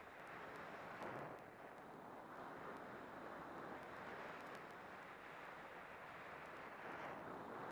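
Steady rushing hiss of skis gliding through fresh powder snow, mixed with wind over the microphone, swelling about a second in and again near the end, with a few faint light ticks.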